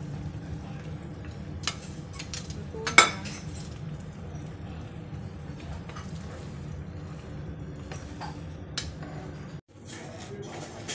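A metal utensil clinking against a nonstick cooking pot while the braised chicken is stirred and dished out. The loudest clank comes about three seconds in. A steady low hum runs underneath.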